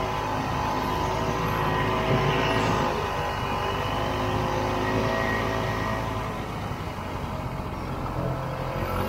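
1967 Ski-Doo Olympique's 250cc single-cylinder two-stroke engine running under way, with its pitch dipping briefly and coming back up about three seconds in. The engine eases off somewhat for a couple of seconds and picks up again near the end.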